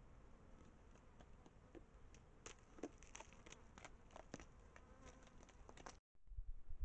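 Faint, irregular clicks and taps from a desert bighorn ram's hooves and body moving on the rock right beside the trail camera, several a second at times.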